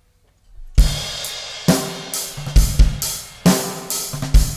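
A live rock band kicks in after near silence, under a second in, led by a Tama drum kit: heavy kick-drum hits about once a second, snare and crashing cymbals, with bass and electric guitar underneath.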